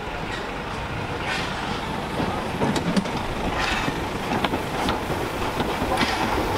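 Steam-hauled heritage train running: a steady rumble with scattered short clicks and knocks.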